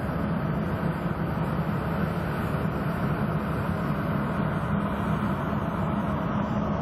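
A tractor engine and the fan of a tractor-mounted air-blast cannon sprayer, running steadily while spraying: an even drone with a constant low hum.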